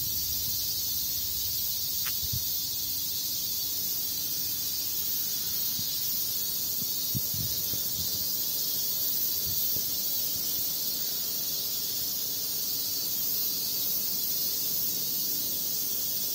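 Steady high-pitched insect drone, a background chorus of cicadas, unchanging throughout, with a few faint low thumps.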